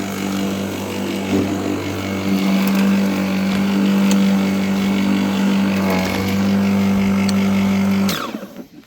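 Worx 40 cm cordless lawnmower's electric motor and blade running at a steady speed, then switched off about eight seconds in and spinning down with a falling whine.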